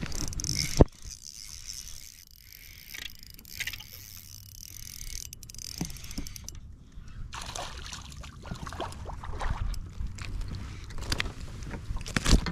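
Spinning reel and handling noises in a kayak as a small bass is reeled in and lifted aboard: a sharp knock about a second in, a run of rapid fine clicks around the middle, then a busier stretch of rustling and knocks in the last few seconds.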